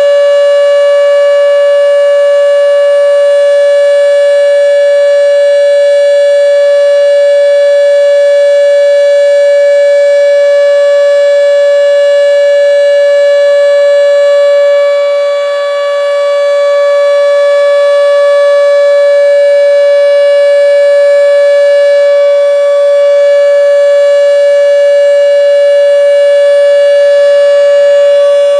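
Federal Signal Model 5 outdoor warning siren sounding a steady Alert tone, loud and holding one pitch, with a brief dip in loudness about halfway through.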